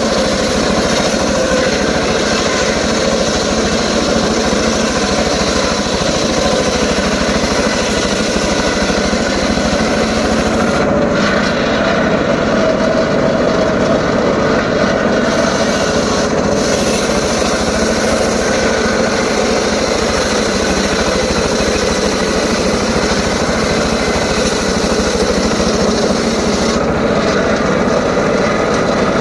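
Homemade circular saw running steadily while cutting teak wood: a continuous loud whine and rasp of the blade in the wood. The high hiss of the cut drops away briefly a few times, as between feeds.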